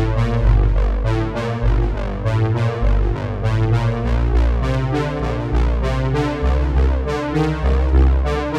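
Background music: an instrumental passage of electric piano and synth chords over deep bass notes and a steady beat.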